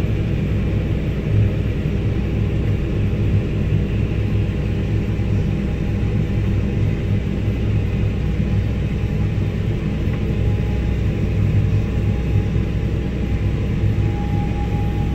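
Harvest machinery running steadily under load: a deep, even engine drone from the tractor towing the grain cart and the Claas Lexion combine harvesting wheat alongside while unloading grain. A faint thin whine comes in near the end.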